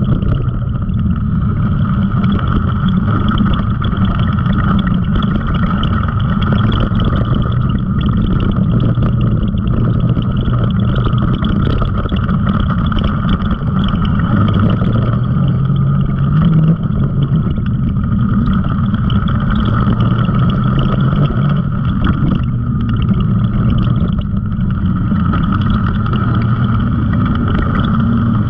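Side-by-side UTV engine running steadily as it drives a dirt trail, its note rising and falling with the throttle, with a steady higher whine over it.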